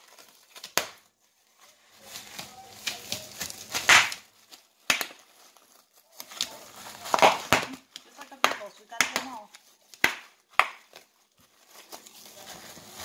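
Bubble wrap being popped by a dog: about a dozen sharp pops at irregular intervals, with the plastic crinkling between them.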